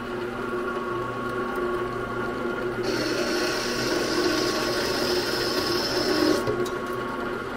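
CNC machine's slitting saw cutting through a small 304 stainless steel bar to part off a tiny part, over the steady hum of the running machine. A higher hiss comes in about three seconds in and stops about three and a half seconds later.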